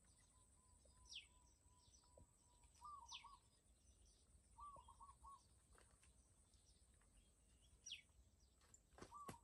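Faint birdsong: short phrases of three or four quick notes repeated a few times, and now and then a high whistle sweeping downward. Near the end come a couple of sharp clicks.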